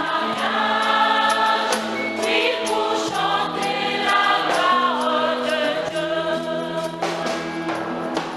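A choir of women singing a hymn together in unison, holding long notes, over a regular sharp beat.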